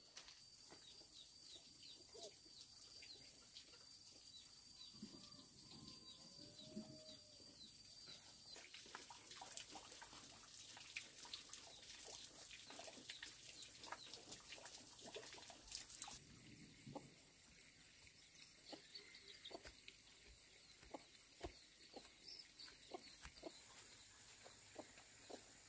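Near silence: faint outdoor ambience with a steady high whine, small scattered rustles and clicks, and a brief soft call about six seconds in.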